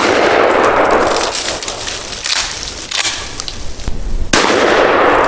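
Two shotgun blasts, one right at the start and one about four seconds in, each followed by a long rolling echo that fades over a second or two.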